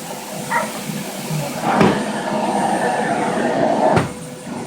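Household vacuum cleaner running with a steady whine, with a knock about two seconds in and a sharper knock near the end.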